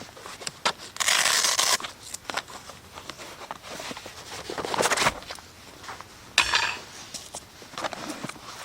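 Rustling and scraping of camp gear being handled, in several separate bursts; the loudest, about a second long, comes about a second in.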